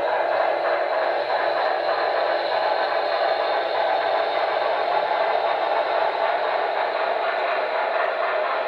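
HO scale model freight train rolling steadily past on the track, the boxcars' wheels running over the rails behind a Broadway Limited Norfolk & Western Y6b steam locomotive model.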